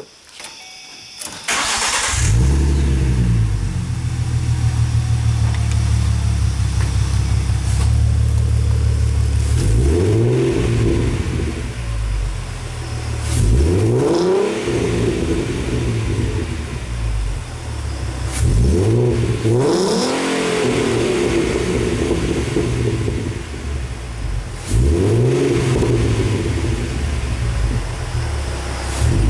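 2013 Ford Mustang's 3.7-litre V6, fitted with BBK shorty headers and a Ford Racing sport exhaust, heard at its quad tailpipes: the starter cranks and the engine catches about a second and a half in, then settles to a steady idle. It is revved four times, each rev rising quickly and falling back to idle.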